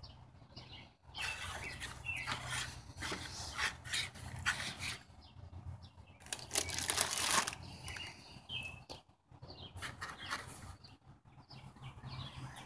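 Rustling and crinkling of a plastic bag and cardboard box as blister-carded Hot Wheels cars are lifted and moved, in irregular swells with small clicks, loudest about seven seconds in.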